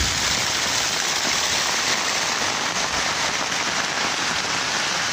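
Heavy tropical downpour: a steady, even hiss of rain on the ground, with streams of rainwater pouring down a stone wall.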